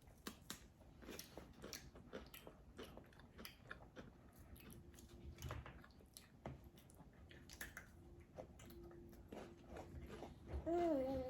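People chewing and crunching food close to the microphone: many small bites and mouth clicks. Near the end a short, wavering hummed voice sound, the loudest moment.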